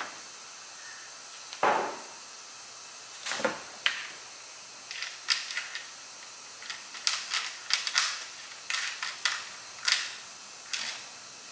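Scattered sharp metal clicks and knocks as a big washer and nut are handled and started by hand onto a mounting bolt inside a plastic kayak hull, with a duller thump about two seconds in.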